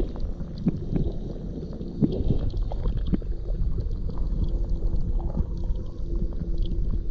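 Muffled water sound heard through a submerged camera housing: a constant low rumble with a few soft knocks and swishes in the first three seconds as a hand lets a bream go in front of the lens. A faint steady hum comes in about halfway through.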